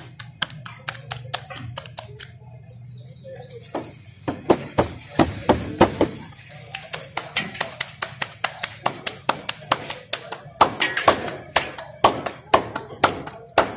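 Puri dough being slapped flat between the palms, a rapid run of sharp pats at about three a second with a short lull about two seconds in. Hot oil sizzles in a large wok underneath as puris fry.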